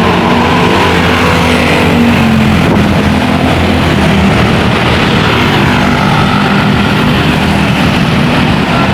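Large tour bus's diesel engine running loud and steady at close range, with road noise.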